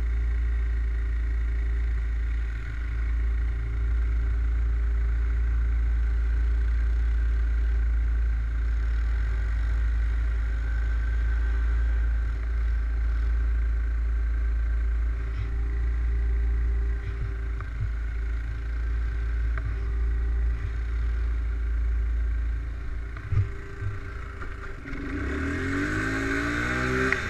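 ATV engine running steadily, with a single sharp thump about three-quarters of the way through. Near the end the engine revs, its pitch rising and falling.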